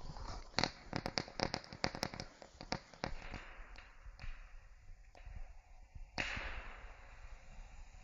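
Small firework rockets: a run of quick faint pops and crackles in the first three seconds, thinning out, then a sudden hissing rush about six seconds in that slowly dies away, as a rocket motor burns.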